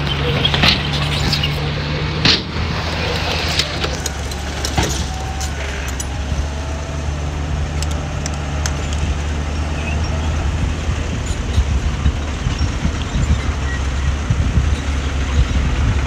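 Heavy earthmoving machine's diesel engine running steadily at a low hum, with several sharp metallic clanks in the first few seconds.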